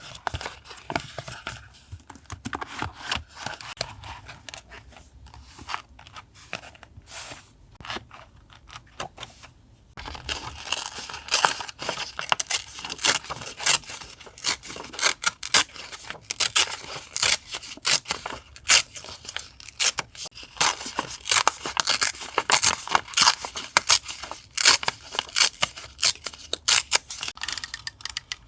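Scissors cutting paper in quick repeated snips, mixed with paper rustling. The snipping is sparse and quieter at first, then denser and louder from about a third of the way in.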